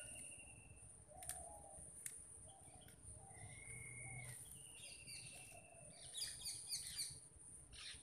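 Small birds calling: a few short sharp chirps, two held whistled notes of about a second each, then a quick run of chirps near the end, with a steady high whine behind.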